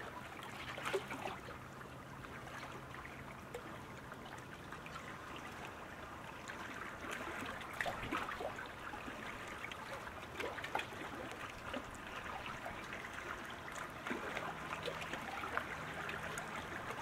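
Faint sound of gently moving water, trickling with many small splashes and drips.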